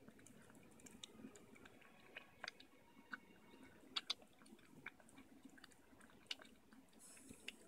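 Chihuahua puppy chewing moist food from a stainless-steel bowl, faint, with scattered small clicks of eating against the bowl; the two sharpest clicks come about four seconds in.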